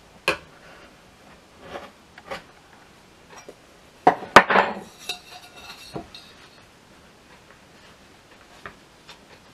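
A knife ticking and scraping against a small fluted metal tart tin as it cuts pie dough around it. The loudest moment is a clatter of the tin about four seconds in, ringing briefly.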